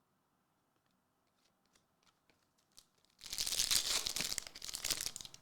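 Foil wrapper of a trading card pack being torn open and crinkled for about two seconds, after a few faint clicks of cards being handled.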